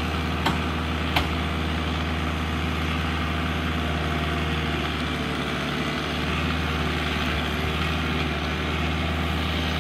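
Heavy machine's engine running steadily under load while pushing against a stubborn tree, with two short sharp snaps about half a second and a second in.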